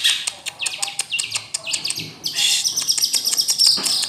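Long-tailed shrike (centet/cendet) singing: a fast run of sharp ticking, chattering notes and short downward-sliding whistles, then a held high note over the second half that sinks slightly at the end.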